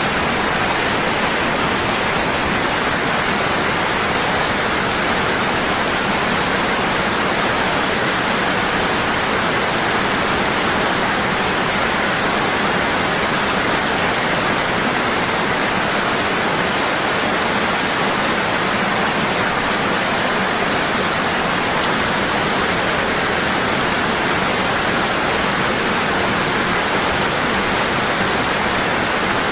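Waterfall: water falling hard and steadily, a constant even rush.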